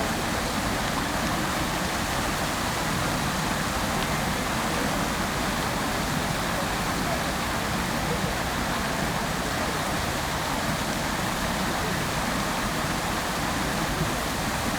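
Fountain water splashing steadily, an even rush of falling water with no breaks.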